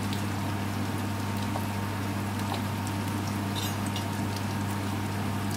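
Steady low hum with faint, scattered crackles of sliced onions frying gently in a pan.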